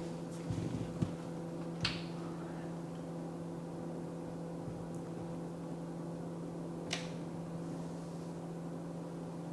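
A steady low electrical hum, with two short sharp clicks, one about two seconds in and another near seven seconds.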